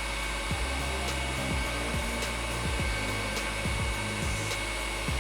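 Electric mixer running steadily, whipping egg whites into meringue as sugar is added, with background music with a steady beat underneath.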